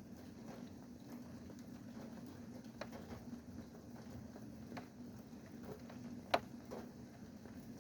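Rain falling, with single drops tapping a hard surface at irregular intervals, the sharpest about six seconds in, over a steady low hum.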